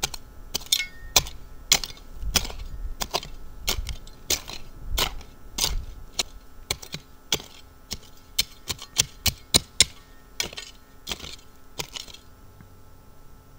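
A short-handled shovel repeatedly chopping and scraping into dry dirt, with loose soil scattering. The strikes are sharp and irregular, come faster for a while, and stop shortly before the end.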